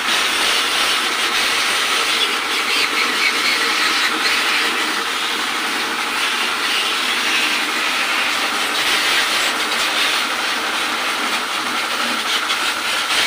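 Pressure washer's water jet making a steady, loud hiss that stays constant throughout.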